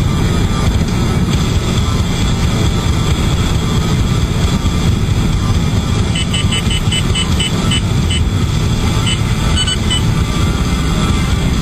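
Valentine One radar detector alerting: a quick run of short, high beeps about six seconds in that slows over two seconds, then a few more beeps near the end. Under it, steady road and engine noise heard inside the car's cabin at highway speed.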